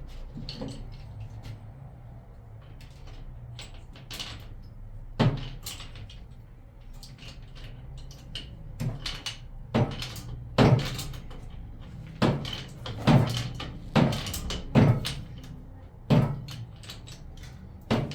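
A series of sharp knocks and thumps. They come sparsely at first, then at about one a second from around ten seconds in.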